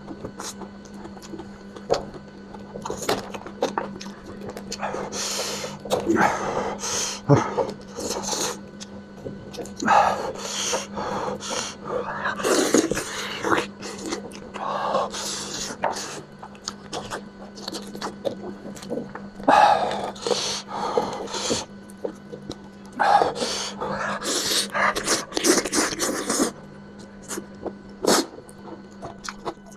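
Close-up eating sounds: a person chewing and slurping spicy lamb head meat, with irregular wet mouth noises and clicks every second or two over a steady low hum.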